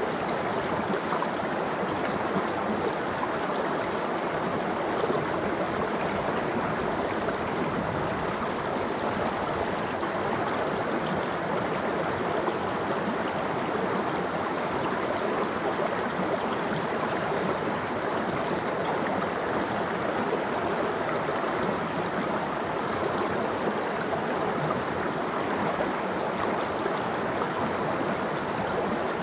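Valley stream running, a steady even rush of flowing water.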